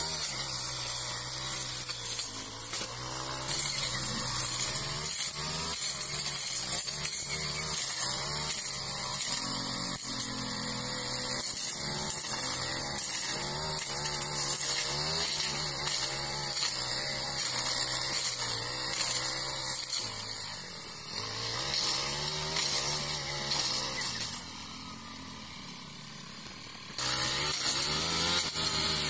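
Backpack brush cutter with a Honda GX four-stroke engine running at high throttle, its engine note wavering up and down as the metal blade bites into dense brush and woody stems. Near the end it drops much quieter for a couple of seconds, then comes back up to full speed.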